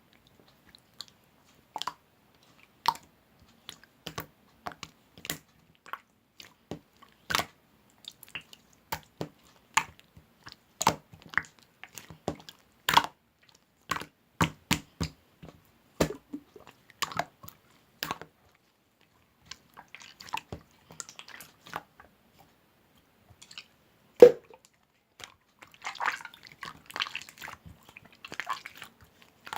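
Close-miked ASMR trigger sounds: irregular sharp, wet clicks one or two at a time, with one louder knock about two-thirds through. Denser squishy crackling follows near the end.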